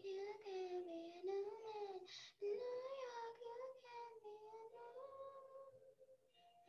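A young girl singing solo, holding long notes; the last note fades out near the end. Heard over a video call.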